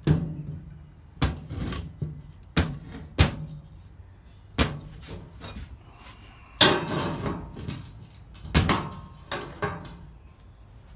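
A small Briggs & Stratton engine block knocked and set down on a workbench as it is turned over by hand: a string of separate clunks every second or two, with a louder clattering run about six and a half seconds in.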